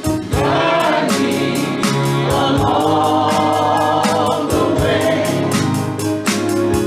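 Church choir singing a gospel song, accompanied by a drum kit keeping a steady beat on the cymbals, with a bass line underneath.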